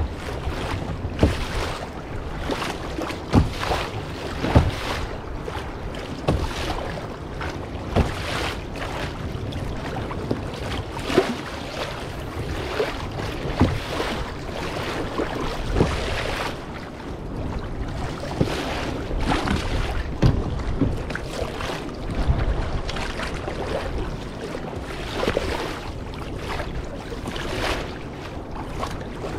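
Sea water slapping and splashing against a kayak's hull, with irregular short knocks and splashes every second or so over a steady wash, and wind buffeting the microphone.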